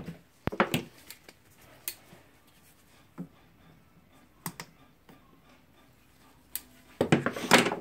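Light clicks and taps from small tool parts being handled on a workbench, spread out one by one. Near the end comes a louder quick cluster of clicks and knocks.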